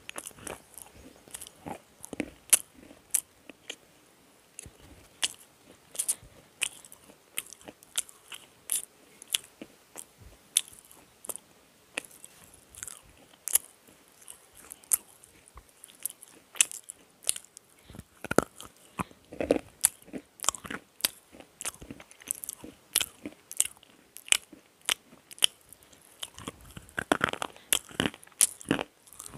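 Black slate pencil pieces being bitten and chewed right at the microphone: irregular sharp crunches and clicks as the brittle slate breaks between the teeth. There are denser runs of crunching about two-thirds of the way through and again near the end.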